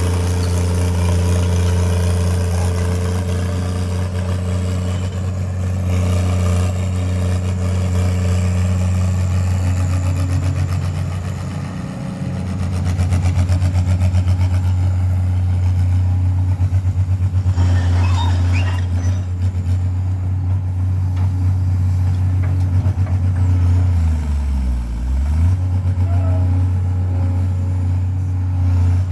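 Kato HD700 V2 excavator's diesel engine running steadily with a deep hum. Its note sags briefly about twelve seconds in, then drops and recovers more deeply near the end, with a few faint clanks in between.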